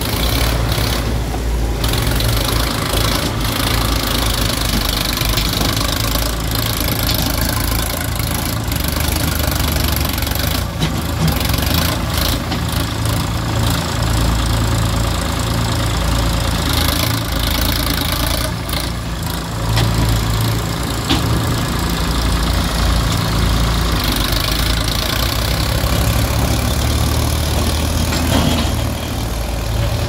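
Diesel engine of a JCB 3DX backhoe loader running steadily under working load while it loads murum.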